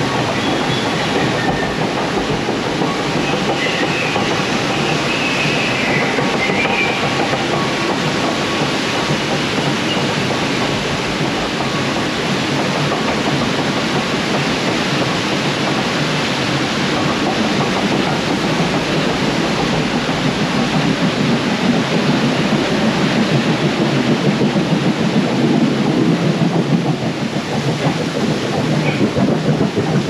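A river-rapids raft climbing the ride's conveyor lift ramp, the lift running with a steady mechanical clatter beneath it. In the last several seconds, rushing water from the rapids at the top of the lift grows louder.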